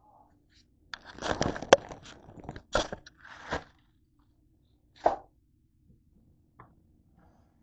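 Handling noise: about a second in, a stretch of rustling and clicks with one sharp click, then a couple of knocks and a short rustle, and one more knock about five seconds in.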